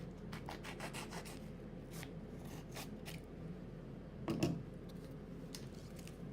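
A heated MRE entrée pouch being opened by hand: a run of short crinkles and clicks from the pouch's packaging, with a louder rustle about four seconds in, over a steady low hum.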